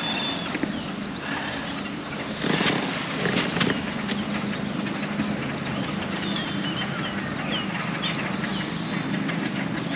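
Small birds chirping over a steady rushing background noise, with a few sharp clicks about two and a half to four seconds in.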